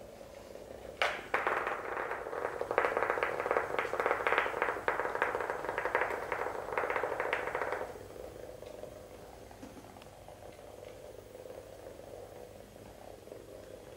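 Hexbug Nano vibrating toy bug rattling across a hardwood floor as a rapid, buzzing clatter. It starts sharply about a second in and cuts off abruptly near the middle, leaving only a faint buzz.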